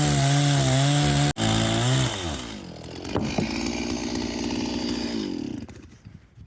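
Chainsaw at full throttle cutting lengthwise through the trunk to rip a plank. About two seconds in, the revs fall to a quieter idle with a couple of knocks, and the engine stops near the end.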